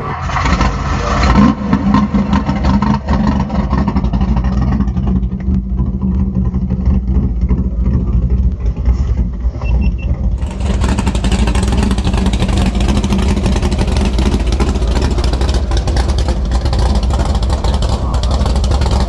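Car engine idling steadily, with a low, even drone. The sound turns fuller and brighter about ten seconds in.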